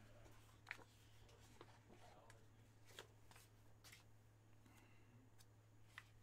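Near silence: a few faint clicks and rustles of trading cards and plastic card holders being handled, over a low steady hum.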